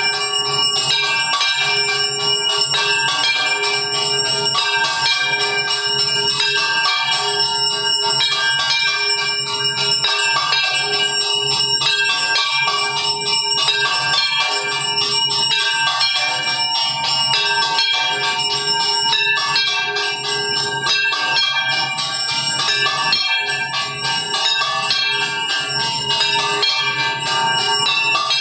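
Temple bells rung rapidly and without pause during the evening aarti, many overlapping ringing tones.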